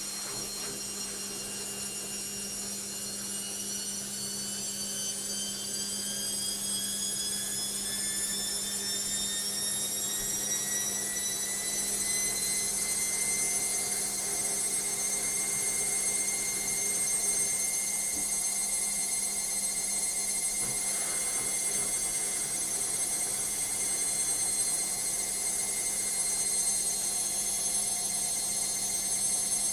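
Logik washing machine spinning up: the motor's whine rises in pitch for about the first half, then holds steady at full spin speed over a constant low hum, the whole getting gradually louder.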